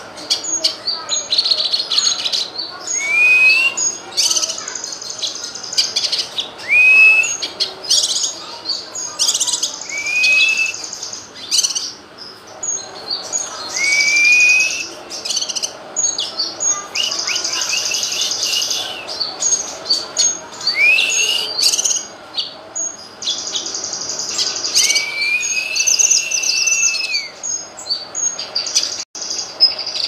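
Cucak kinoy, a leafbird, singing a long varied song: clear upward-curving whistled notes every few seconds, one drawn out longer near the end, mixed with quick high chattering phrases.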